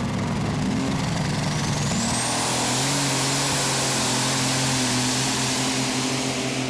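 Competition pulling tractor's racing engine at full throttle during a pull, a loud steady roar. A high whine climbs in pitch over the first two seconds, then holds.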